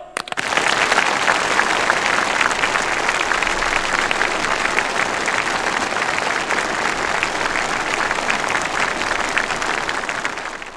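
Massed applause from a large crowd of uniformed soldiers, a dense, steady clapping that starts just after the start and fades near the end.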